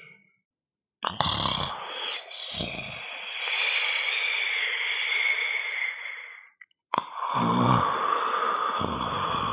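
People snoring: rattling, fluttering snores in two separate recordings. They start about a second in, with a short silent gap between them just before the end.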